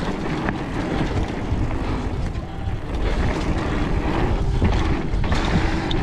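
Steady rumble of a fully rigid fat-tire mountain bike (2017 SE OM Duro, 27.5 x 3 inch tires) rolling over dirt singletrack, with wind over the microphone and occasional sharp knocks and rattles from bumps.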